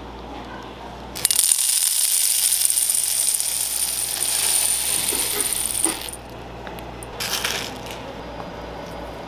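Small hard sugar sprinkles poured into a metal container: a dense pour lasting about five seconds, starting about a second in, then a short second pour near the end.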